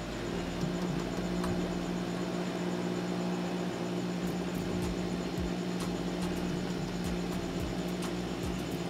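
Lotus 6-inch bench grinder running at speed: a steady electric-motor hum with light, irregular ticking. The grinder is vibrating a little on its left side, which the owner suspects comes from the mounting not sitting flat.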